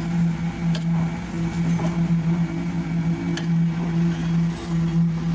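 Heavy diesel paving machinery running: a steady, loud drone that swells and dips, with a few faint knocks.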